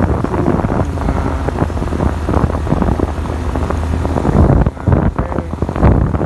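Wind buffeting the microphone on a moving vehicle, over a steady low drone of its engine.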